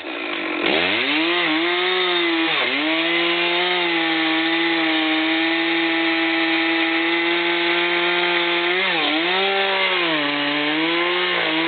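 Chainsaw revving up and running at high revs as it cuts into a large cedar trunk. The engine note sags briefly under load a few times and then picks back up.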